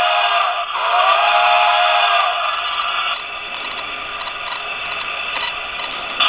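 Model steam locomotive's sound decoder blowing a multi-note steam whistle through its small speaker, in two blasts: the second, longer one ends about three seconds in. A quieter steady hiss follows, with a short louder sound near the end.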